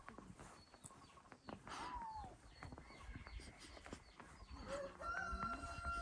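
A rooster crowing: a short falling call about two seconds in, then one long drawn-out crow starting near the end, over light scattered taps.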